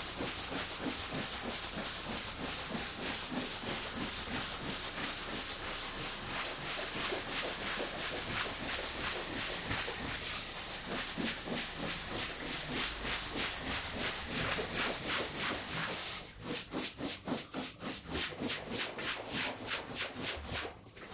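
Pressure-washer water jet spraying onto a wet rug, a steady hiss that breaks into rapid pulsing, about four spurts a second, near the end. The audio plays sped up.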